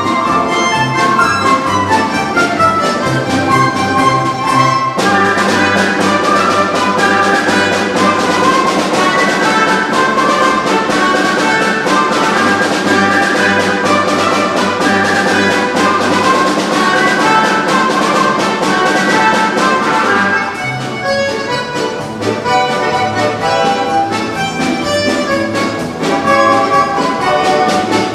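Orchestral polka music with brass and strings. The full orchestra comes in about five seconds in and thins out again about twenty seconds in.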